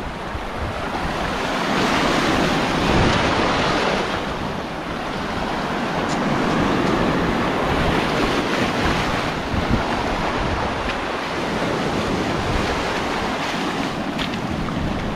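Sea waves washing and foaming over a rocky shoreline, swelling and easing as each wave comes in, with wind rumbling on the microphone.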